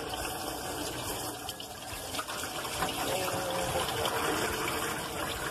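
Water pouring and splashing into a stainless steel sink as a bowl of rinsed strawberries is drained, a steady running sound that gets a little louder in the second half.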